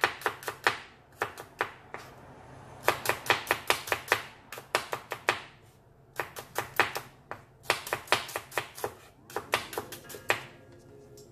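Kitchen knife slicing shallots and garlic on a plastic cutting board: runs of quick, sharp taps of the blade on the board, about five or six a second, with short pauses between runs.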